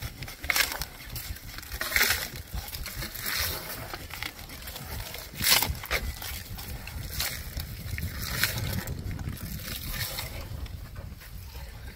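Rustling and crunching of a pile of cut green stalks and leaves as an elephant's trunk gathers fodder close by, in irregular bursts, the loudest about five and a half seconds in.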